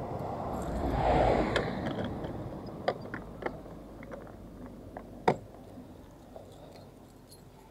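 Keys jingling and clicking as a key works the lock of a scooter's plastic rear top box, with a loud sharp click about five seconds in. A brief rush of noise swells and fades around a second in.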